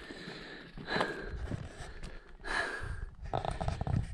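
A person breathing in a few short audible puffs through the nose and mouth, with light rustling and steps on stony, scrubby ground.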